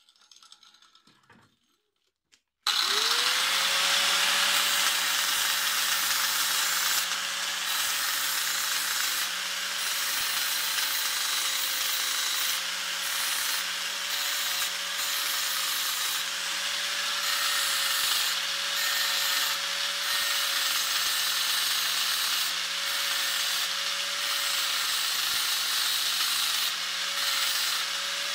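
Angle grinder switched on a little under three seconds in, its whine rising quickly to a steady pitch, then grinding the steel cutting segments of a sickle-bar mower knife, a loud, harsh hiss over the motor note that keeps on without a break.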